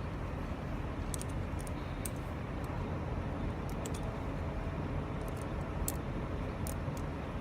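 Steady low rumble of a vehicle, with scattered light metallic clicks, about eight over the few seconds, as tire-chain hardware is handled.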